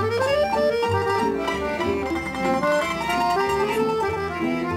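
Tamburica band playing a lively folk tune, a melody of plucked strings over a steady bass line.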